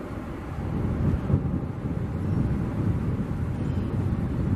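Airbus A319 corporate jet's two turbofan engines running, heard from a distance as a low, steady rumble that swells slightly about a second in.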